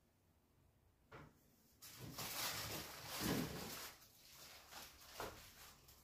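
Top-freezer refrigerator's freezer door pulled open with a soft click, then faint rustling and a few small knocks as things inside the freezer are moved about.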